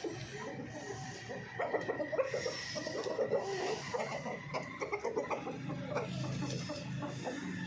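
Chickens clucking in a run of short, repeated clucks.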